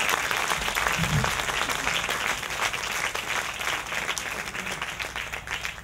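Audience applauding after a song. The applause slowly dies away toward the end.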